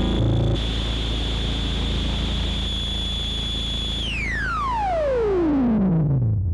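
Synthesizer holding a high, steady tone over a low drone and hiss, then about four seconds in sweeping smoothly down in pitch to a low note, closing the piece.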